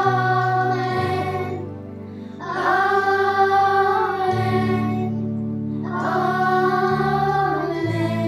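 Children's choir singing a closing "Amen" in three long sung phrases over held accompaniment chords.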